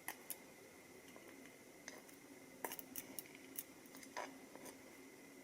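Faint, scattered clicks and taps of small metal lock parts (pins and sliders from a disassembled Mul-T-Lock MT5+) being handled and set down, with a cluster of quick clicks about midway.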